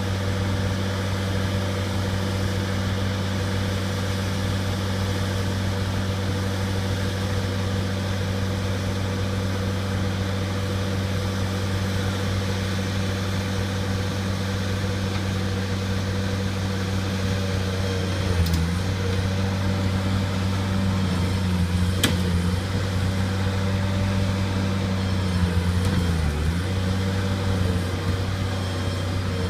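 Bobcat skid-steer loader's engine running at a steady speed. Its pitch wavers briefly twice in the second half, and there is one sharp click between them.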